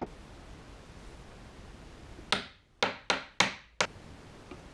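Glue brush swept across plywood clamp-jaw parts: five quick scraping strokes, each cut short, starting about two seconds in and ending near four seconds.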